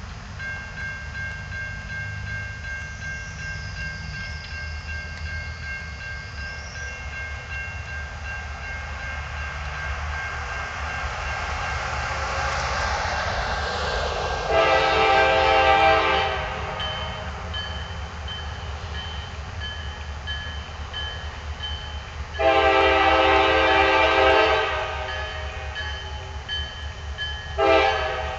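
CSX GP40-2 diesel locomotive approaching, its EMD 16-cylinder engine rumbling low, while it sounds its air horn. There are two long blasts, the first about halfway in and the second about eight seconds later, then a short blast near the end: the opening of the long-long-short-long grade-crossing signal.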